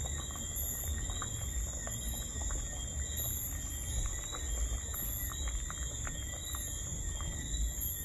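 Pot of crayfish soup boiling hard, bubbling and popping irregularly, with a wooden spoon stirring through it, over a steady low rumble. Insects chirp high in the background, about once a second.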